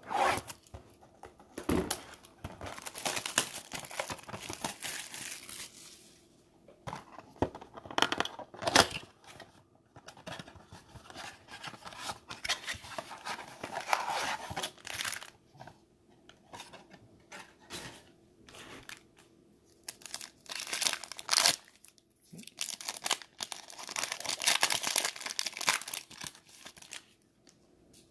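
A blaster box of football trading cards and its packs being torn open by hand: wrappers tearing and crinkling in repeated bursts with short pauses between.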